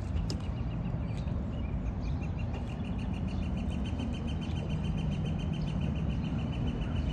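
A bird calling in a fast, even series of high chirps for several seconds, over a steady low rumble.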